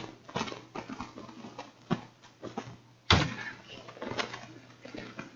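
Scattered faint knocks and clicks, with one louder knock about three seconds in.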